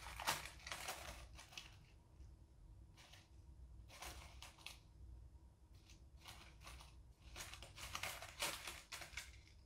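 Faint, intermittent dry rustling and crackling as a snake moves through loose wood-chip bedding while hunting down its food: about a dozen short scratchy bursts with near quiet between them.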